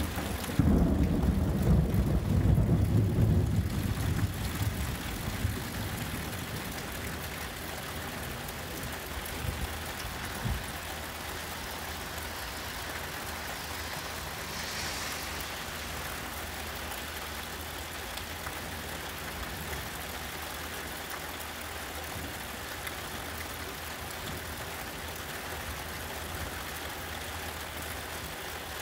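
Thunder rumbling loudly for the first four or five seconds and fading, over steady rainfall that then carries on alone.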